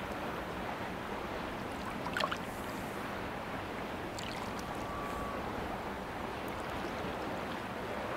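Steady ambience of river water, an even wash of moving water with a couple of faint clicks and a brief faint whistle-like tone about halfway through.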